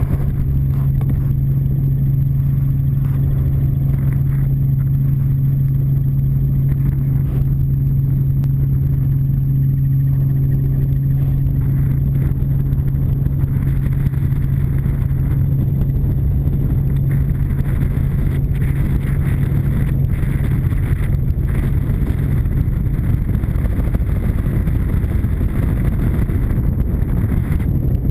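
Robinson R44 helicopter in flight, heard from inside the cabin: a loud, steady engine and rotor drone with a strong low hum. About twelve seconds in, the hum fades and a rougher rushing noise takes over.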